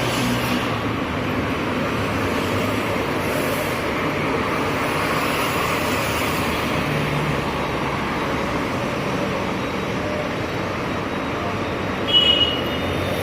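Street traffic noise: a steady rumble and hiss of passing vehicles, with a brief high-pitched tone near the end.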